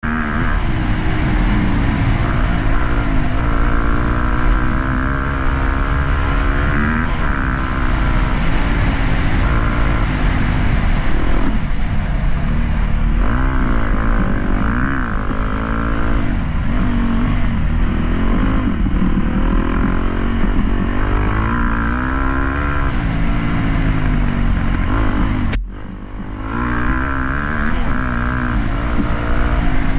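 Dirt bike engine running under riding load, its pitch repeatedly rising and falling as the throttle is opened and closed. The sound drops out sharply for a moment about 26 seconds in, then carries on.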